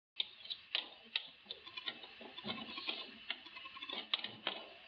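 Irregular light clicks, taps and rustles of cardboard packaging being handled.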